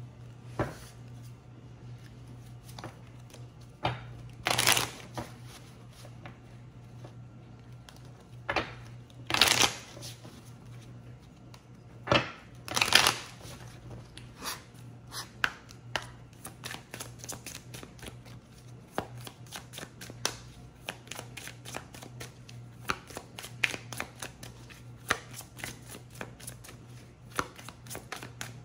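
A deck of oracle cards shuffled by hand: papery riffles and rustles, with a few louder bursts in the first half, then a quick run of small card clicks as the cards are shuffled overhand. A faint steady low hum runs underneath.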